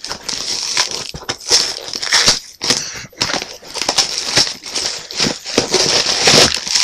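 Parcel packaging being torn open by hand: irregular crinkling, rustling and tearing of paper or plastic wrapping.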